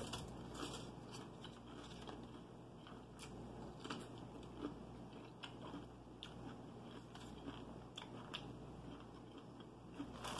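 A person chewing fried chicken, faint, with scattered small crunches and mouth clicks.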